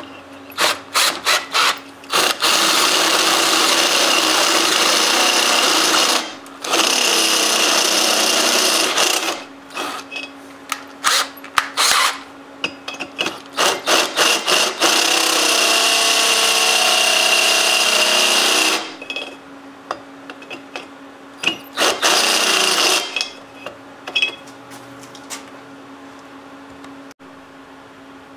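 Handheld drill with a tapered step bit boring through the metal wall of a homemade water-cooled Briggs & Stratton engine block. It runs in many short trigger bursts and a few longer steady runs, with a lower, different grinding stretch a little past the middle. It falls quiet for the last few seconds.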